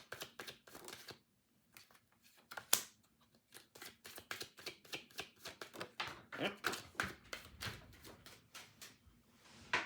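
Tarot cards being shuffled and drawn by hand: a rapid run of light card flicks and snaps, with a brief lull and one sharp snap about three seconds in.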